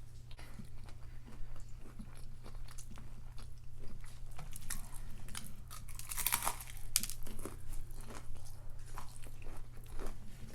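Close-up chewing and biting of a crunchy homemade battered onion ring, with repeated crisp crunches and a louder crunch a little past halfway, over a steady low hum.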